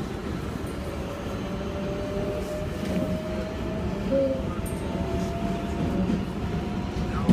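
New York City subway train running, heard from inside the car: a steady rail rumble with a thin whine that slowly rises in pitch.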